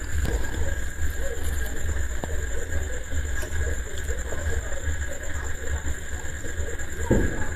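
Soft eating sounds, luchi being torn, dipped in ghugni and chewed, over a steady low rumble with a faint high-pitched whine, with a slightly louder mouth sound near the end.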